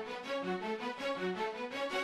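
Background music: a quick run of pitched instrument notes, about four a second.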